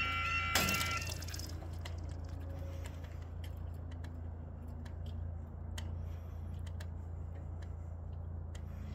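A faulty level-crossing yodalarm with a strange-sounding warbling tone cuts off about a second in, once the barriers are fully down, just after a sharp knock. A steady low hum follows, with a few faint ticks.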